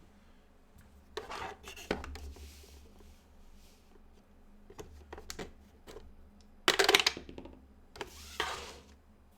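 Dice rattling and tumbling in a dice roller in several bursts, the loudest about seven seconds in, over a low steady hum.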